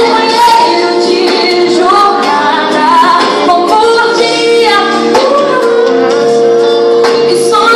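A woman singing a Christian worship song live, backed by a band. She holds one long note through the second half.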